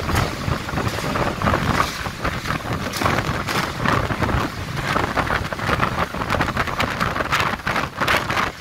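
Strong storm wind blowing in irregular gusts and buffeting the microphone.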